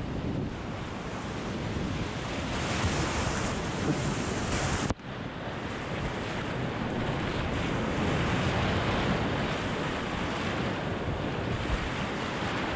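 Whitewater rapid rushing and splashing around a kayak, heard close at water level, with wind buffeting the microphone. The rush cuts out for an instant about five seconds in, then carries on.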